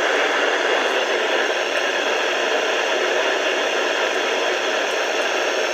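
FM radio static: a steady hiss with no programme audio coming through.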